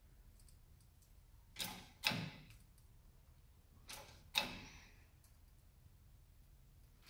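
Hydraulic shop press being hand-pumped: two pairs of short strokes about two seconds apart, faint, as load builds on a Porsche 996 rear wheel bearing before it breaks free of the hub.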